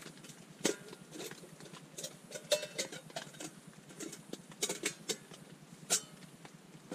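Metal camping pot and cooking pan being handled: irregular clinks and taps of metal on metal, a few with a brief ring.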